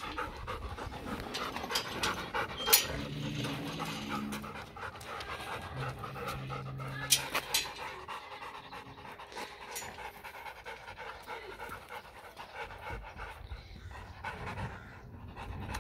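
German shepherd–Labrador cross dog panting close by, with a couple of sharp clicks a few seconds apart.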